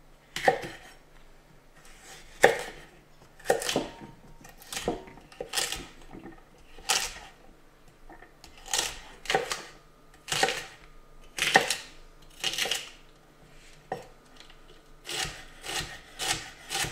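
Chef's knife slicing and dicing crisp fennel on a wooden cutting board: separate cutting strokes, each ending in a knock on the board, about one a second, quickening into a run of faster chops near the end.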